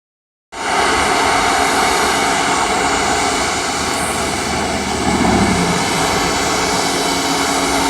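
Executive jet's engines running: a steady rushing noise with a steady high whine, starting about half a second in.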